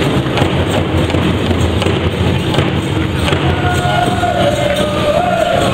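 Powwow drum and singers: a steady drumbeat with voices, a high sustained sung line coming in about three seconds in and dropping lower near the end.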